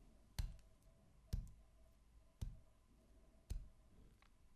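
A clock ticking: four sharp ticks about a second apart, marking time passing while the thawing cakes wait.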